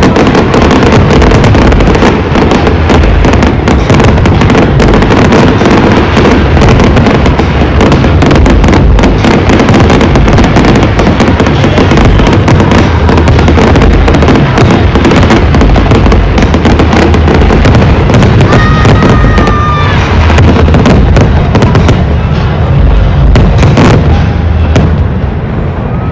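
Dense, rapid barrage of aerial firework shells bursting and crackling, thinning out in the last few seconds. A short whistle sounds about three-quarters of the way through.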